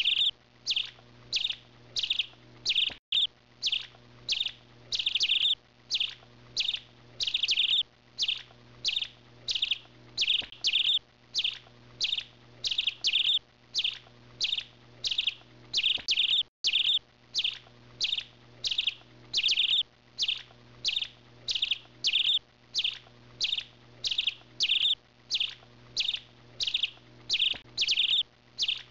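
A bird chirping over and over in a very even rhythm, about two chirps a second, over a faint steady hum. The sound cuts out briefly twice.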